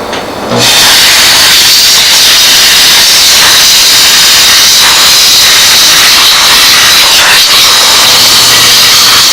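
Steam cleaner nozzle jetting steam, starting suddenly about half a second in and then a loud, steady hiss.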